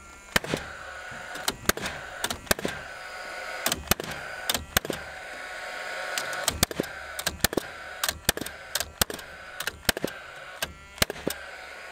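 Paslode cordless framing nailer driving 3-inch ring-shank nails into a 2x4 double top plate: a string of sharp shots at uneven spacing, several close together at times, over the whir of the nailer's fan motor.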